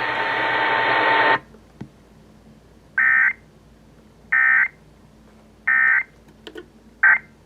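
Emergency Alert System end-of-message data bursts: three short, identical, shrill digital warbles about a second and a third apart. Before them, a stretch of radio hiss cuts off about a second and a half in, and a brief blip follows near the end.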